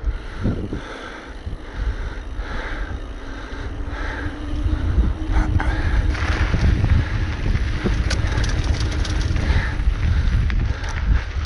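Wind noise on the camera microphone and the rumble of a downhill mountain bike rolling fast. It grows louder and rattlier about halfway through, as the bike leaves the pavement for a dirt trail, with many quick clicks and rattles from gravel and the bike.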